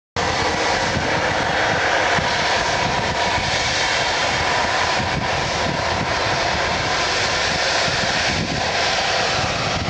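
Boeing 757-204 airliner's twin Rolls-Royce RB211 turbofans at takeoff thrust during the takeoff roll: a loud, steady jet rush with a faint whine above it.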